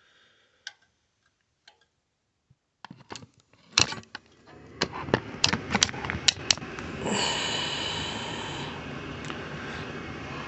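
Clicks and knocks of handling at a gas furnace, then the furnace's induced draft (inducer) motor starting and running with a steady whir that comes in strongly about seven seconds in and slowly settles. The inducer runs but the furnace goes no further: the pressure switch does not close and the burners do not light.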